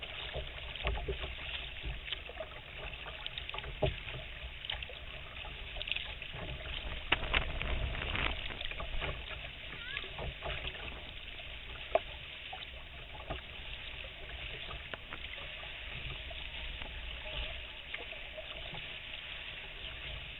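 Water lapping and splashing around a kayak's hull, with scattered knocks and a low rumble underneath.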